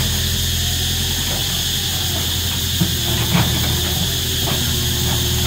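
Cicadas buzzing loudly in a steady high chorus over the low, steady running of a machine's engine, with a couple of short knocks near the middle.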